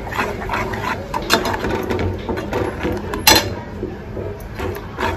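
Metal spatula scraping and knocking against a steel pot while thick tomato masala is stirred and fried, with one sharper clank a little past three seconds in.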